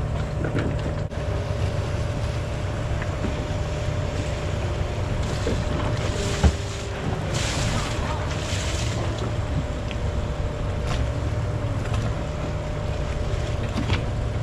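Wind on the microphone and sea water washing against the hull over a steady low hum from the boat, with a brief surge of hiss in the middle and one sharp knock about six and a half seconds in.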